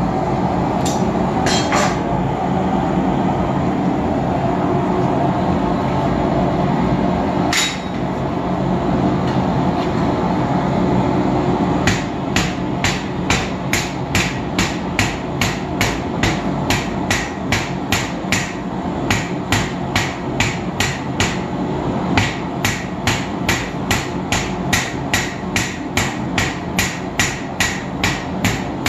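Hand hammer striking red-hot round steel bar on an anvil in a steady rhythm of about two blows a second, drawing out a taper. It starts about 12 seconds in and pauses briefly near 22 seconds. Under it the propane forge burner makes a continuous rushing noise, with a couple of metal clinks in the first seconds as the bar is handled at the forge.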